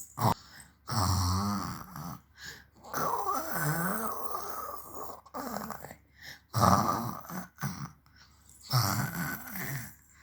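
A baby imitating snoring: about four throaty, snore-like vocal noises in a row, the middle one the longest.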